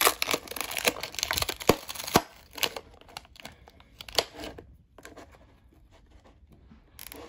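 Clear plastic wrap being peeled off a plastic deli cup and crinkled by hand: a quick run of crackles and snaps that dies down to a few faint ticks for the last couple of seconds.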